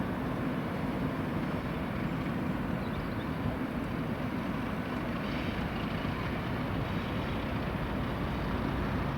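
Diesel locomotive running, a steady rumble with a constant low engine drone.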